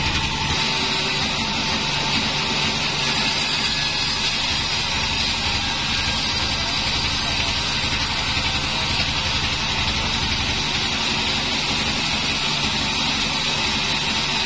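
Homemade band sawmill running, its band-saw blade cutting lengthwise through a log. The blade makes a steady sawing hiss over the low, even drone of the machine's drive.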